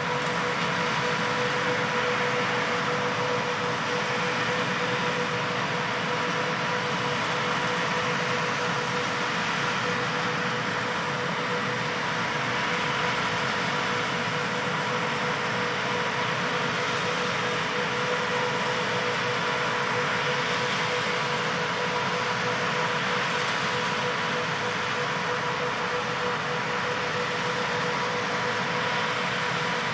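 John Deere 8R-series tractor pulling an Amadas six-row peanut combine, running steadily while picking peanuts: an even mechanical hiss with a steady hum through it.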